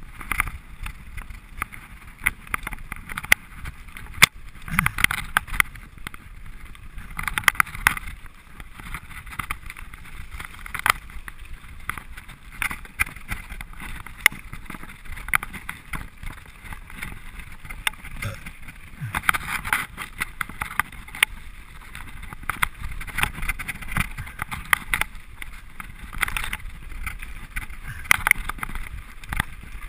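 Mountain bike running fast down a rocky dirt trail: frequent sharp knocks and rattles of the bike over stones and roots, with tyre noise on loose gravel and bursts of wind on the microphone.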